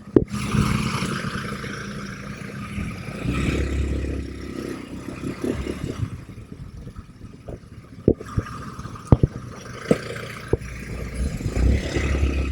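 ATV engine running as it is ridden, with several sharp knocks and rattles, most of them in the second half.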